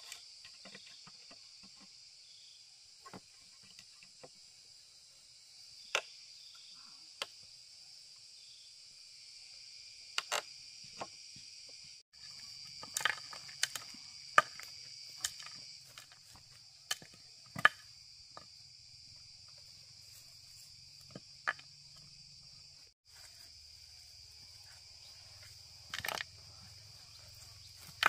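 Steady high insect chorus, with scattered sharp knocks and taps over it every second or few, most of them between about 13 and 18 seconds in.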